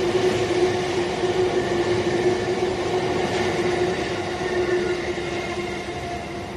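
Out-of-service electric train passing through a station without stopping: steady running noise of wheels on rails with a steady hum, fading in the last couple of seconds as the rear car goes by.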